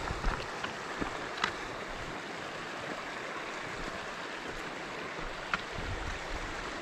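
Steady rush of a mountain creek running over rocks, with a few sharp clicks.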